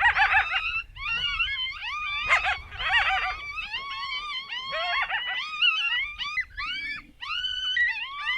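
Coyote howls, yips and wavering whines, several voices overlapping in a continuous chorus of gliding, quavering calls.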